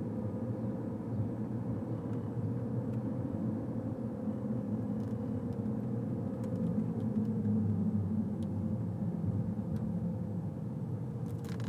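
A motor running steadily: a low rumble with a faint held hum above it, and a few faint ticks.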